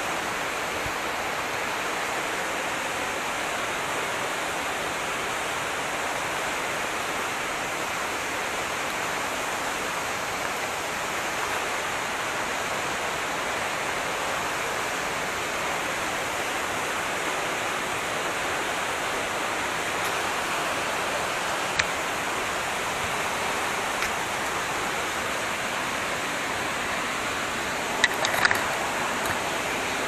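Tall waterfall pouring over rock in full flow, a steady, even rush of falling water. A couple of brief clicks come in the last third.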